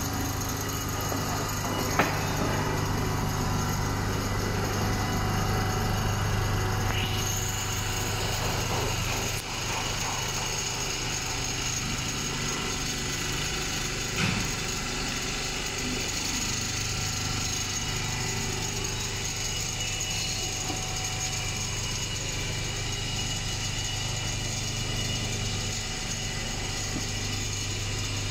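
Computerized quilting machine's sewing head running steadily as its gantry carries it across a framed quilt panel, a continuous mechanical hum and chatter. A sharp click about two seconds in and another about fourteen seconds in.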